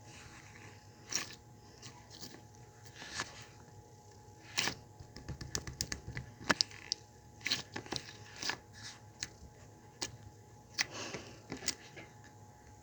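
Clear slime being squeezed and stretched by hand, giving irregular sticky clicks and crackles, thickest in two flurries in the middle and near the end.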